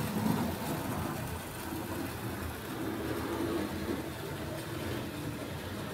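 Tri-ang Hornby OO-scale Class 31 model diesel locomotive running at speed with its coaches on full-wave power: a steady whirr of its electric motor and rumble of wheels on the track, a noisy-running model.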